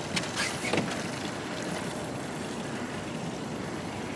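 Steady rushing noise of a pontoon boat under way, wind and water going past, with a few brief knocks in the first second.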